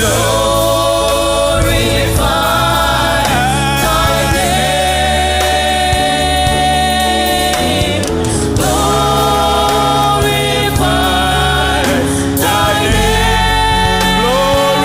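Gospel choir singing long held chords over band accompaniment with a steady bass.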